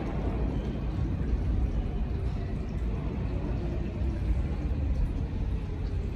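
New York City Subway R160 train running slowly through a tunnel, heard from on board: a steady low rumble of wheels and running gear with a faint motor hum.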